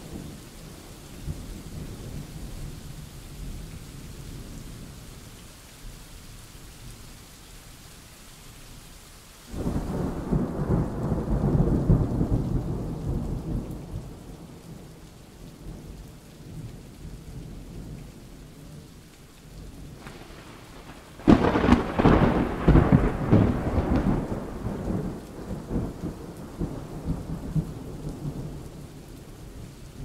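Thunderstorm: steady rain with two peals of thunder, a rolling rumble about a third of the way in and a sharper crack about two-thirds through that rumbles on for several seconds.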